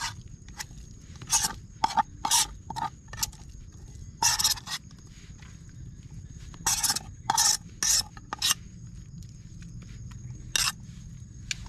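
Spoon scraping food out of a metal camping pot and across a plastic plate, in about a dozen short, uneven scrapes.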